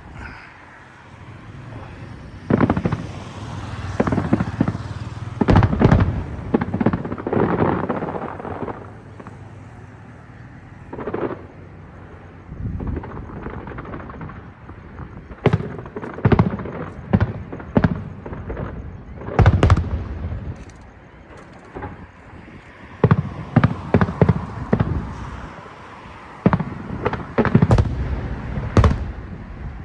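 Aerial fireworks show: shells bursting in irregular volleys of deep booms and sharp cracks, with short lulls between the volleys.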